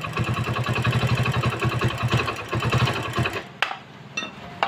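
Hero Splendor's single-cylinder motorcycle engine running with a fast, even mechanical clatter, cutting off about three and a half seconds in. A few sharp metallic clinks follow.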